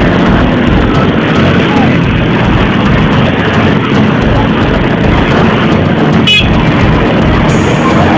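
Motorcycles and cars on a busy street, loud and steady, with horns tooting.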